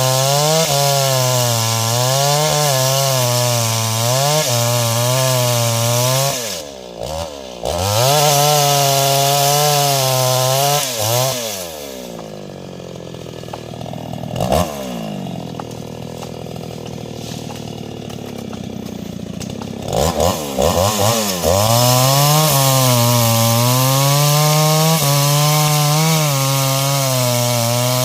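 Stihl MS 381 two-stroke chainsaw running at full throttle and cutting, its pitch wavering as the chain loads in the wood. It eases off briefly about seven seconds in, falls back to a lower, quieter speed for several seconds around the middle with one quick rev, then is revved up again and returns to full-throttle cutting.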